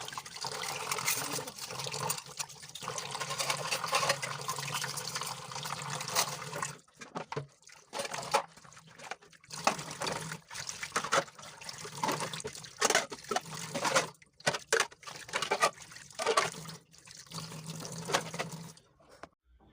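Running water, steady for about seven seconds and then in short, irregular splashes, stopping abruptly near the end.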